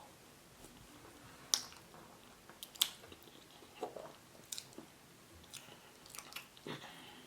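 Faint close-up chewing of boiled yam with spinach and stockfish head, with several short, sharp wet mouth clicks spread through.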